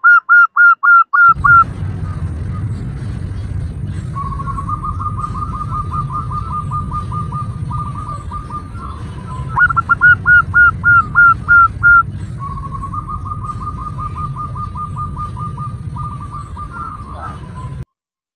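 Female zebra dove calling to a male: runs of loud, quick staccato cooing notes at the start and again about ten seconds in, with longer, softer, faster rippling trills a little lower in pitch between and after them. A steady low rumble runs underneath from about a second in and cuts off abruptly shortly before the end.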